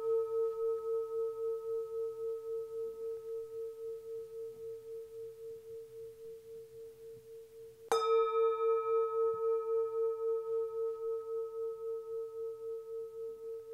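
Singing bowl ringing with a slow wavering pulse, about three beats a second, and dying away. It is struck again about eight seconds in, and the ring swells back and decays.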